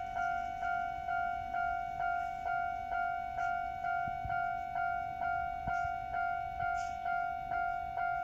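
Japanese level-crossing warning bell ringing over and over, about two strikes a second, each a bright tone that fades before the next. It is the signal that a train is approaching and the crossing is closed.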